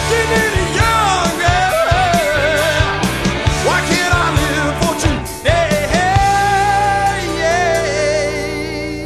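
Rock song with a singer, drums and guitar; one long held sung note about six seconds in.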